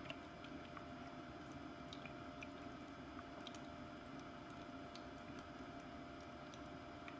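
Ultrasonic cold-mist aroma diffuser running: a faint, steady hum with a thin steady tone, soft water squishing and dripping, and scattered tiny ticks.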